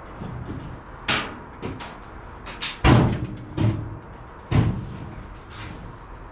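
Sheet-metal clunks and knocks as a Tri-Five Chevy body, lowered on an engine hoist, settles down onto a new full floor pan. There are about five knocks, the loudest about three seconds in, with a short metallic ring.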